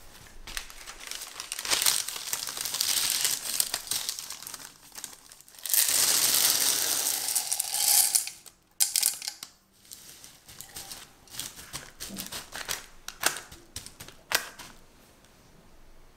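Parchment paper crumpled and pressed into a tart tin, a crackling rustle. About six seconds in, a loud rush of dried red beans is poured onto the paper as pie weights for blind baking, followed by scattered clicks of single beans as they are settled.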